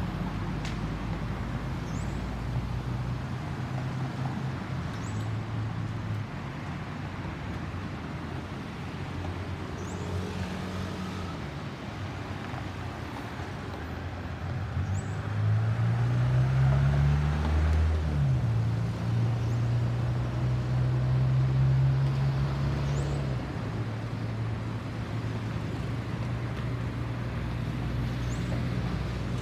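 Low, steady engine hum of road traffic near the microphone, louder for several seconds in the middle, with one engine's pitch falling as another rises about two-thirds of the way through. Under it runs the distant jet rumble of a Boeing 737-800 airliner approaching overhead.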